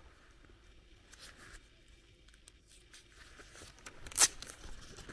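Soft walking sounds and light rustling, then one short, sharp crackle about four seconds in.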